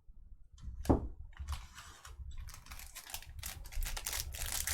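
A sharp click about a second in, then plastic wrapping crinkling and tearing as a pack of trading cards is opened. The rustle grows busier toward the end.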